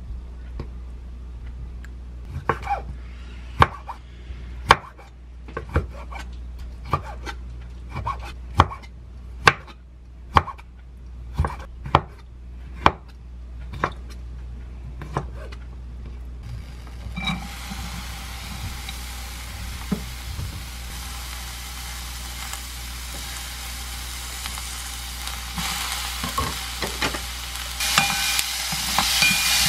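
A kitchen knife chopping abalone on a wooden cutting board, in separate chops about one a second. About 17 seconds in a steady sizzle starts as the chopped abalone and vegetables fry in a pan, stirred with a wooden spatula. The sizzle grows louder near the end.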